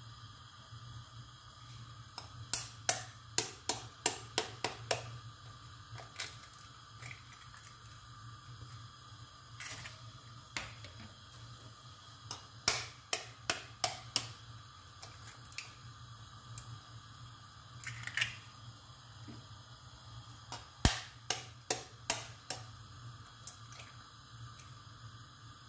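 Eggshells tapped against a nonstick frying pan to crack them: three runs of several quick sharp clicks, a couple of seconds in, about halfway and about three-quarters through, with single clicks between. A steady low hum lies underneath.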